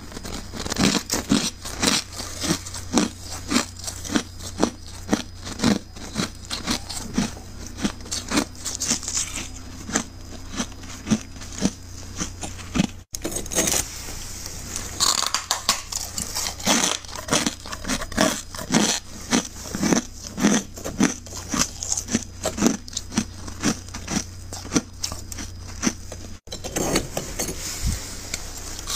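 Powdery freezer frost and refrozen ice being crunched up close: a steady run of crisp crunches, about two or three a second, broken off briefly twice.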